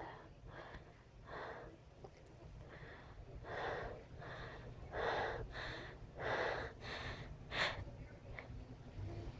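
A person's faint, hitching, gasping in-breaths building up to a sneeze, about a dozen short breaths that grow louder toward the end.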